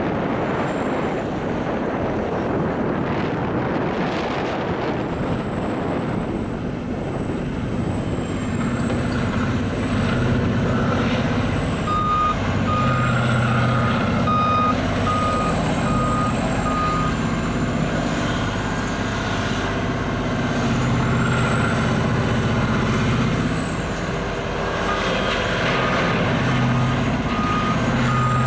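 Heavy earthmoving machine's diesel engine running under load, with its back-up alarm beeping at about two beeps a second as it reverses, midway through and again near the end.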